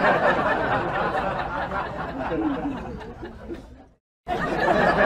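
Many voices chattering and chuckling at once. The sound drops out abruptly for a moment about four seconds in, then resumes.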